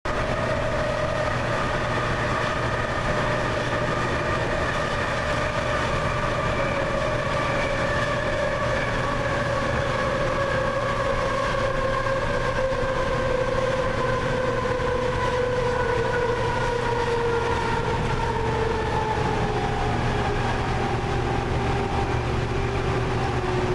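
Inside a MAX light rail car: the train's motor whine falls slowly in pitch as it slows, over a steady low rumble of the running gear.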